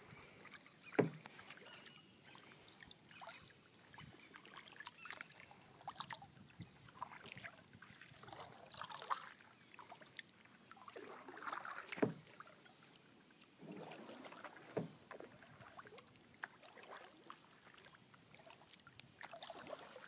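Double-bladed kayak paddles dipping and pulling through calm river water from a tandem kayak: soft, uneven splashes and drips, with a few sharper splashes here and there.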